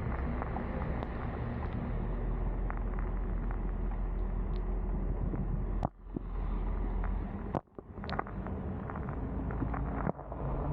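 Motor yacht's inboard engine running steadily underway, a low drone. The sound cuts out abruptly three times, about six, seven and a half and ten seconds in, each time starting again with a click.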